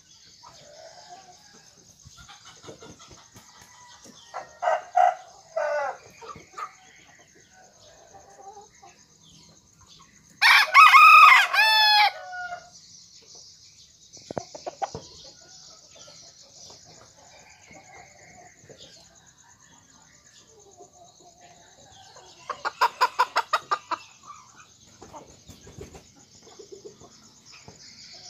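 A white rooster, a cross of jungle fowl with kate–serama bantam, gives a few short clucks, then one loud crow of about two seconds near the middle, and later a quick run of short sharp sounds. A steady high-pitched buzz runs underneath.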